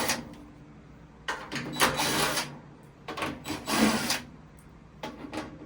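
A washing machine's back panel being worked loose and pulled off, scraping and rattling in three bursts about a second long each.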